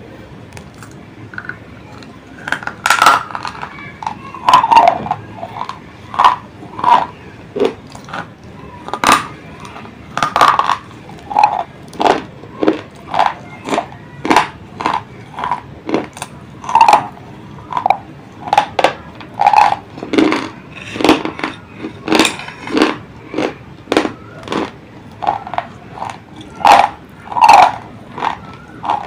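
Close-miked biting and crunching of white slate pencils: loud, sharp crunches about once or twice a second as the sticks are bitten off and chewed.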